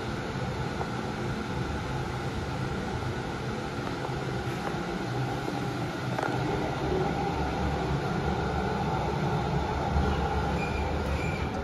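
Glass passenger elevator running: a steady mechanical rumble and hum with faint steady tones, a little louder from about halfway through.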